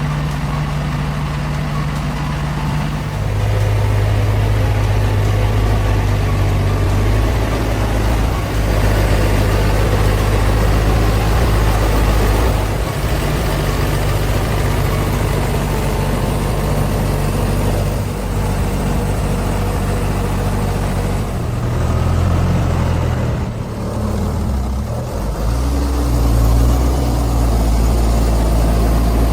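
Logging truck's diesel engine running hard, its engine note stepping up a few seconds in, dipping briefly about three-quarters of the way through, then climbing again.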